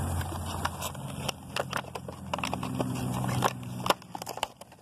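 Plastic packaging and a cardboard box crackling and clicking as they are opened by hand, with a low steady hum underneath that drops away about four seconds in.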